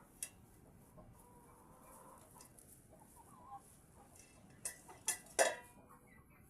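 Brahma chickens clucking softly, with a few sharp, short louder sounds near the end, the loudest about five and a half seconds in.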